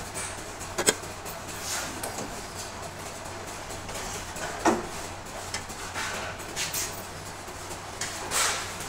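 A few sharp metal clicks and knocks, with some brief rustling, as a hydraulic bottle-jack shop press is handled and its pump handle taken up. The clearest clicks come about a second in and just before five seconds.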